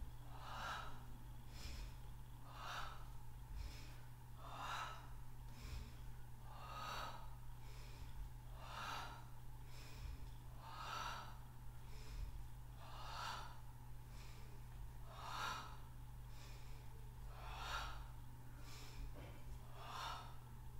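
A woman breathing audibly in a steady, even rhythm while holding and moving through a Pilates exercise, about one full breath every two seconds.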